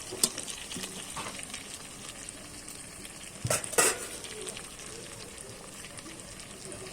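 Chicken and potatoes sizzling in hot oil in a pan as they are stirred and sautéed with spices, with a few sharp scrapes and knocks of the spatula on the pan, the loudest two a little past halfway.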